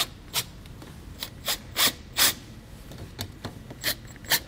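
Cordless impact driver tightening mounting screws in about ten short, sharp bursts, irregularly spaced.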